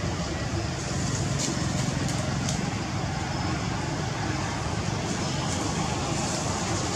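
Steady outdoor background rumble with no monkey calls, a few faint brief ticks about one and two and a half seconds in.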